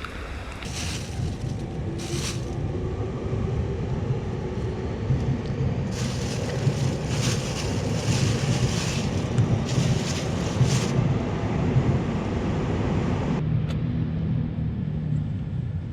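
Wind buffeting the microphone of a camera on a moving bicycle in the rain: a steady low rumble, with bursts of hiss from wet road spray and rain that come and go and die down about three-quarters of the way through.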